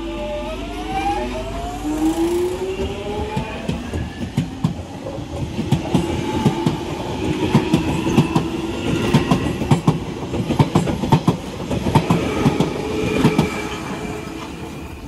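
London Underground 1996 Tube Stock Jubilee line train pulling out of the station: its traction motor whine rises in pitch as it accelerates, then the wheels clatter in quick clicks over the rail joints as the cars pass. The sound fades near the end as the train draws away.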